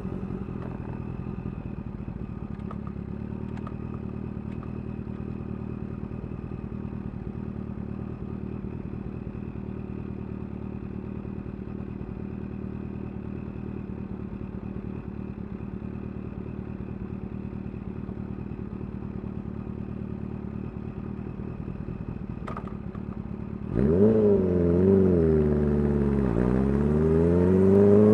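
Kawasaki Ninja H2's supercharged inline-four engine through a full titanium exhaust, running at a steady low pitch. About 24 s in it gets much louder as the revs rise sharply, dip and climb again.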